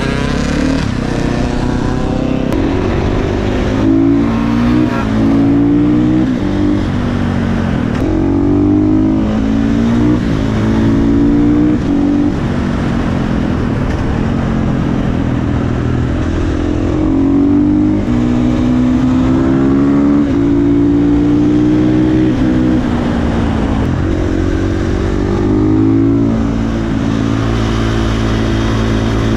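KTM 450 single-cylinder supermoto engine with an aftermarket exhaust, accelerating hard and shifting: the revs climb and drop back again and again as the bike pulls through the gears.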